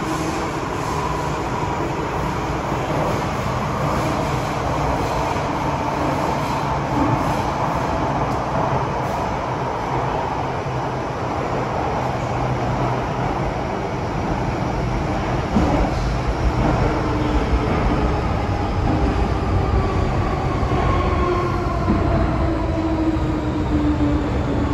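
MTR M-train metro car running, heard from inside: wheel and track rumble with the traction motors' electronic whine, the loud 'ghost-screaming' note. Several whining tones slide slowly down in pitch in the second half, as the train slows.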